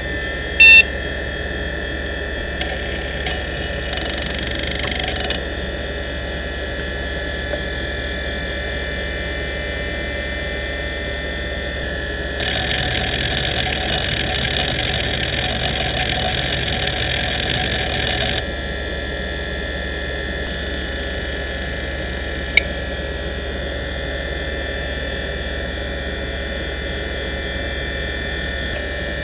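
NEC D3724 hard drive, a single-platter 4090 rpm drive, spinning with a steady whine while its heads work through a benchmark. For about six seconds in the middle, a louder, hissing seek noise rises over the whine. There is one sharp click about a second in and another a little past twenty seconds.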